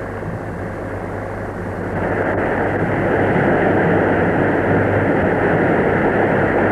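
Large assembly applauding, heard on an old film soundtrack with a low steady hum; the applause swells about two seconds in and then holds.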